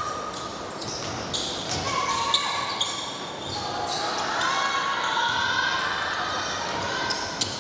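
Basketball game sounds in an echoing gym: a basketball bouncing on the wooden court in sharp knocks, with players' voices calling out.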